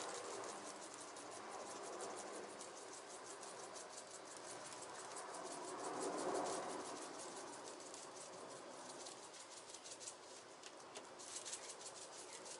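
Soft hand sounds of dry seasoning being sprinkled and rubbed into the skin of a raw whole chicken on an aluminium sheet pan, against a steady, rapid, faint high ticking like insects chirping, densest near the end.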